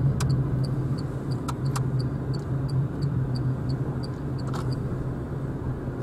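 Inside a Renault Zoe electric car on the move: steady tyre and road noise with a low hum. A turn-signal indicator ticks about three times a second for the car's right turn, then stops a little before the end.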